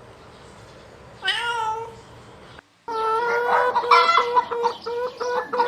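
A cat meowing: one meow about a second in, then, after a short break, a longer run of quick, repeated meows.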